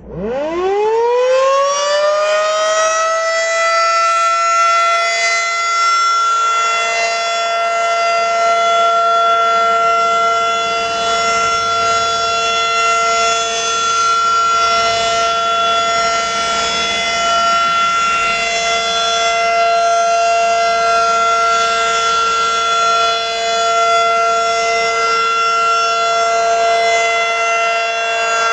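Federal Signal 2001 electromechanical outdoor warning siren winding up from standstill, its pitch rising quickly over about two seconds, then holding a steady full-pitch wail for its monthly test.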